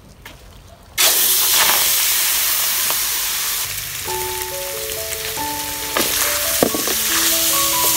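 Diced pork skin hitting a hot wok and frying, with a sudden loud sizzle starting about a second in and running on steadily. In the second half, long chopsticks stir the pieces, with light clicks against the wok.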